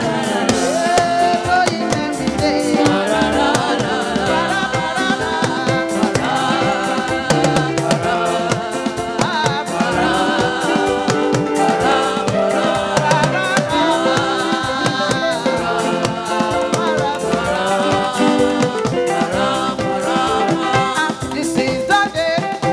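Live gospel music: a female lead singer with backing vocalists singing together over fast, steady drumming, including hourglass talking drums beaten with curved sticks.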